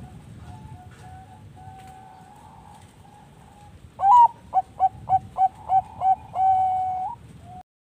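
Zebra dove (perkutut bangkok) singing: soft cooing for the first few seconds, then about four seconds in a loud rising note, a quick run of about six short coos and one long held coo.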